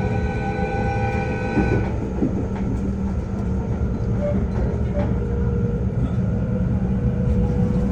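JR West 221 series electric train sounding its horn, a steady multi-note blast lasting nearly two seconds, then running past with a steady low rumble.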